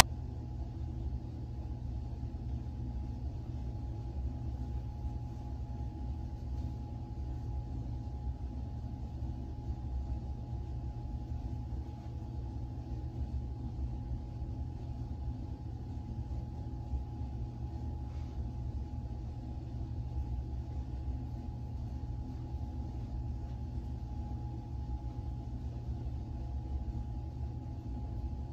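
Steady low room hum with a faint thin steady tone above it, unchanging throughout.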